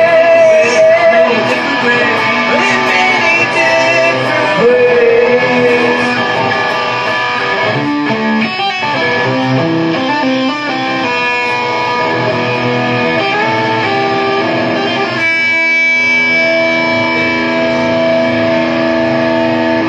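Rock band playing, electric guitar to the fore. A bending melody line in the first few seconds gives way to held chords ringing out near the end.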